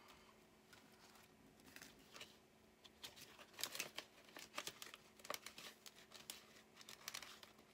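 Faint crinkling and rustling of the plastic envelope pages of a ring-bound cash-budget binder as they are turned and handled, with scattered light clicks and taps, busier in the second half.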